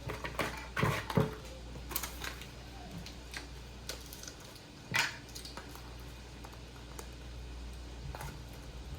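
Light scattered clicks and taps of a measuring spoon and spice containers being handled while seasonings are spooned into a bowl, with a sharper knock about five seconds in.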